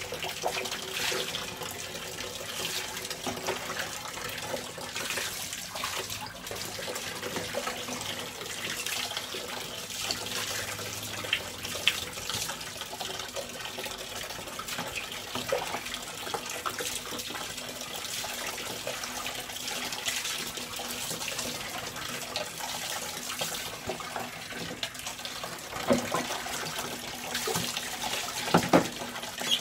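Tap water running steadily into a plastic bucket, with intermittent splashing as water is scooped with a mug and poured over a wet dog; the loudest splashes come near the end as the mug is dipped into the bucket.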